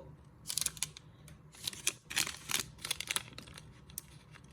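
Plastic snack-bar packaging crinkling in short, irregular bursts as it is handled.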